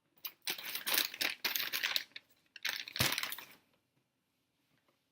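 Paper fast-food packaging crinkling and rustling in two spells, the first about two seconds long and the second about a second, with a single knock near the start of the second.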